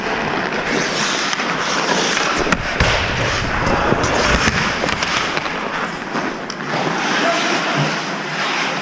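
Ice hockey play close up: skate blades scraping and carving the ice, with sharp clacks of sticks and puck and a few heavier knocks.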